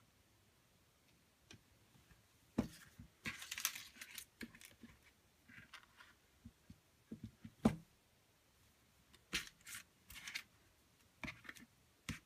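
Hands handling paper cards and small craft embellishments and rummaging in a plastic tub: scattered light taps and clicks with short bursts of paper rustling, the sharpest knock a little past halfway.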